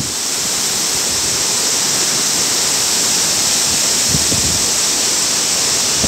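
Waterfall: a steady, loud rush of water pouring down a rock face and over boulders, an even hiss with no breaks.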